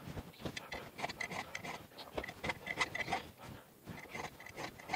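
Round chainsaw file rasping across the cutters of a saw chain in a series of short strokes: the chain is being hand-sharpened.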